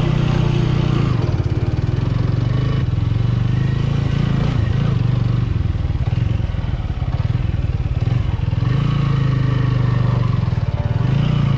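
TVS Apache RTR 200's single-cylinder engine running as the motorcycle is ridden over a rough dirt track, its note rising and falling with the throttle.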